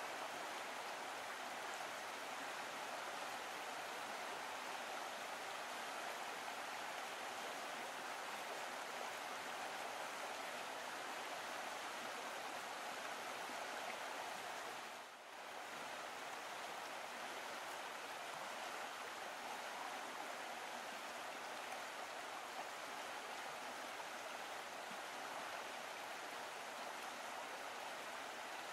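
Steady sound of a stream's flowing water, dipping briefly in level about halfway through.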